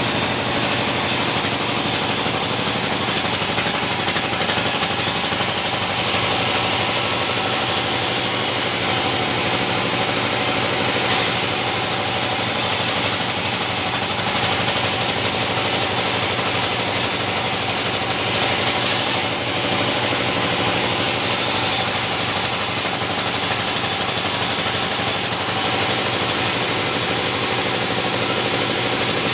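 Sawmill band saw (benso) running steadily, cutting timber into 5x5 beams.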